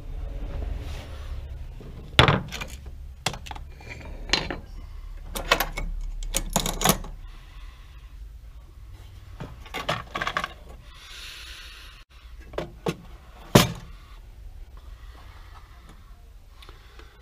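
About a dozen irregular knocks and clacks of hard objects, sharpest about two seconds in and near thirteen and a half seconds, with a brief rustle around eleven seconds.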